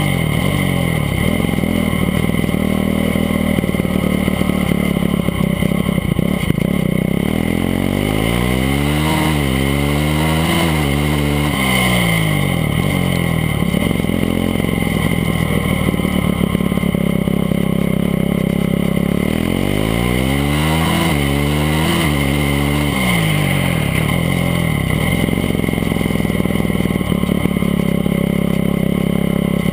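Formula SAE race car's engine running hard as the car is driven, its revs rising and falling several times as it accelerates and slows, heard close up from on the car.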